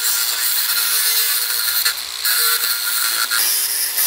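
Cordless DeWalt angle grinder with a cut-off wheel running and cutting through wire mesh, a loud steady hiss over a faint motor whine. It briefly lets up about two seconds in, then carries on cutting.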